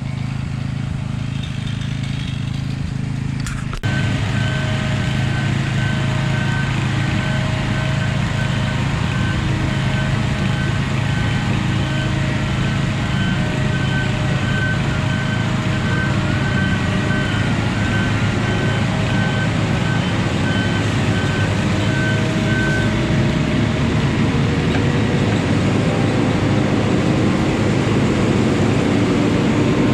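Diesel engine of heavy logging machinery running steadily, with a high whine pulsing on and off. It turns louder abruptly about four seconds in, and its pitch slowly rises over the last several seconds.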